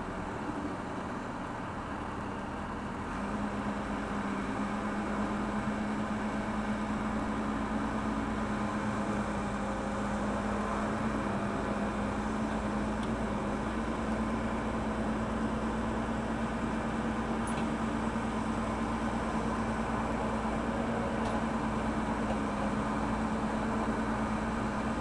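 Backhoe loader's diesel engine running under load while digging, growing louder about three seconds in and then holding a steady hum.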